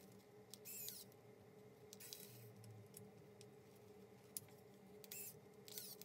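Near silence with faint handling noises: a few short, light scrapes of small metal parts as a miniature shackle is fitted to a 1/10-scale crawler's bumper, and one small click about four and a half seconds in.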